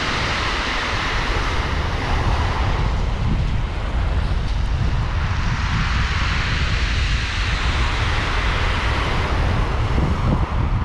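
Wind buffeting the microphone with a steady low rumble, over small waves washing up and drawing back on a shingle beach; the hiss of the surf swells twice.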